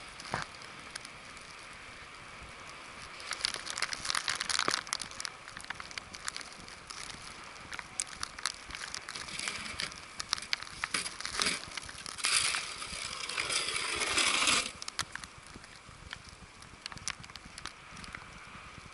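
Footsteps crunching in fresh snow, an irregular crackle in clusters. A louder hiss swells for a couple of seconds about two-thirds of the way through, then cuts off.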